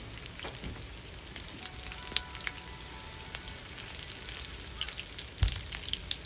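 Food sizzling in a hot pan, a steady frying hiss with scattered small pops.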